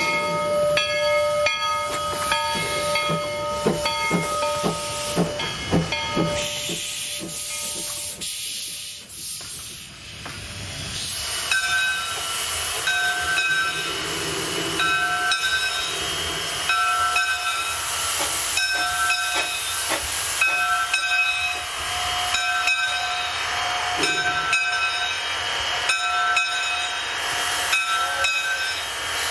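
Two-foot gauge steam locomotive, Bridgton & Saco River No. 7, chuffing at about two beats a second over a steady ringing tone. After a few seconds this gives way to loud steam hiss from the standing locomotives, with a ringing tone that repeats about every second and a half.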